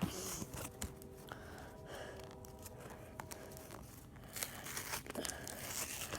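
Foil wrapper of a Pokémon booster pack crinkling and tearing as it is opened by hand, with scattered sharp crackles that get busier near the end.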